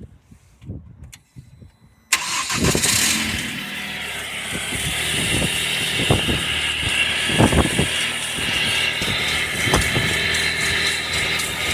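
Ford Mondeo MK3 1.8 SCi four-cylinder petrol engine started from cold: it catches suddenly about two seconds in and runs on with a steady high-pitched whine over the engine note and a few dull thumps. This is the weird sound the engine makes after a cold start.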